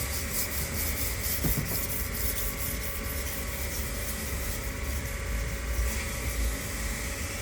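Kitchen knife blade being stroked across a wet 1,000-grit whetstone with very light pressure, a steady rubbing scrape. At this stage the burr is being taken off the edge.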